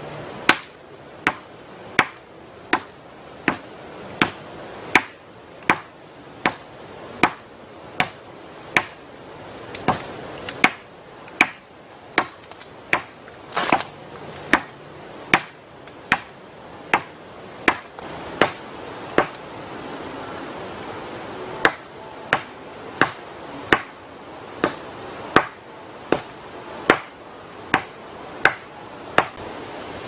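A blade chopping into the base of a bamboo stalk: sharp, evenly paced strikes, a little more than one a second, with a short pause about two thirds of the way through.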